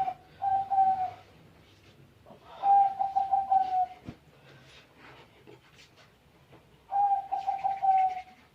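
A dove cooing: three rolling calls, each about a second long, dropping slightly in pitch, with pauses of a couple of seconds between them.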